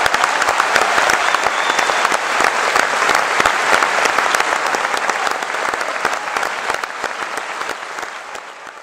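Concert audience applauding after an opera aria, a dense, steady clapping that fades away over the last few seconds.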